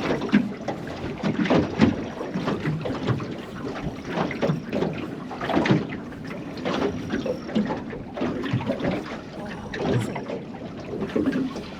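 Small waves slapping against a small boat's hull, with wind buffeting the microphone and irregular knocks and splashes.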